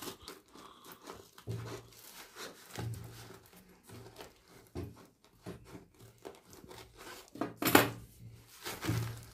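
Scissors cutting through the paper and tape wrapping of a parcel, with paper crinkling and tearing in short snips and rustles. The loudest is a longer tear about three-quarters of the way through, with another near the end.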